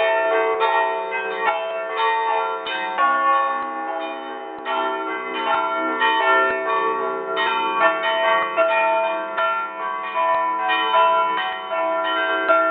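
Several church bells rung together in a festive peal, heard close up in the belfry. Rapid strikes, several a second, with the bells' tones overlapping and ringing on between strokes.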